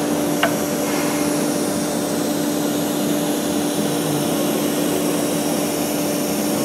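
SINMIC SC1325 ATC CNC wood router's spindle running with a steady, even whine over a hiss while it routes the wood panel on its bed. There is one short click about half a second in.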